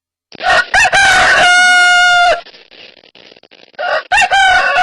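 Rooster crowing twice, cock-a-doodle-doo, each crow ending in a long held note; the second crow starts near the end and runs on.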